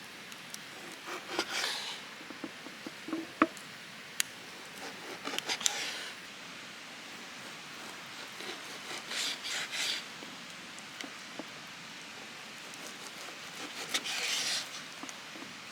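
Four short bouts of scraping and rubbing, a few seconds apart, with a few sharp clicks in between, over a steady hiss.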